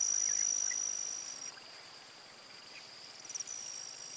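Insects calling in a steady, high-pitched chorus of several overlapping trilling tones; one of the tones breaks off about a third of the way in while the others go on.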